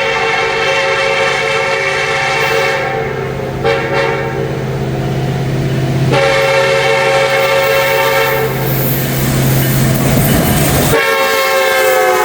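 Norfolk Southern freight locomotive (the Lackawanna heritage unit) sounding its multi-chime air horn in long blasts, very loud, with a short break about three seconds in. A steady low drone sits underneath. About eleven seconds in, the horn chord slides down in pitch as the locomotive passes, and the drone drops away.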